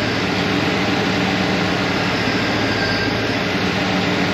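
Car engine idling steadily under an open hood with the air conditioning switched on: a low hum under a broad, even rushing noise.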